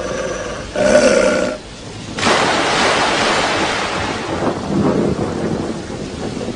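Cartoon lightning-strike sound effect: a sudden loud thunderclap about two seconds in that fades away as a long rumbling hiss. Just before it, a short pitched cartoon yelp.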